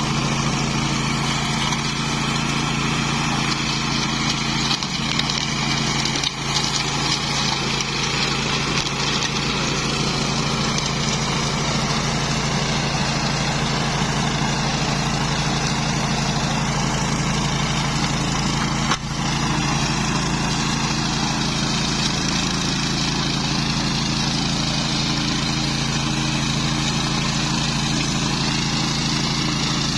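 Engine of a homemade flail mower running at a steady speed, with one brief click about two-thirds of the way through.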